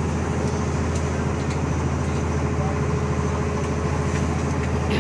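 Outrigger boat's engine running steadily under way, a constant low drone, with the hiss of spray and water rushing along the hull.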